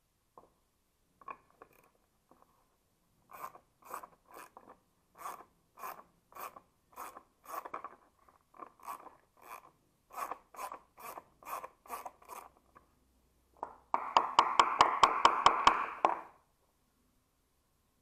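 A hand ratchet clicking as a screw on a Land Cruiser door-latch plate is turned, in short bursts about two or three a second. Near the end comes a louder, faster run of rapid, even clicks lasting about two seconds.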